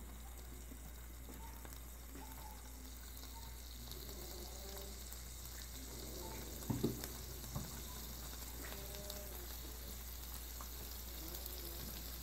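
Peeled prawns sizzling faintly on a hot grill pan, with a couple of soft knocks a little past the middle.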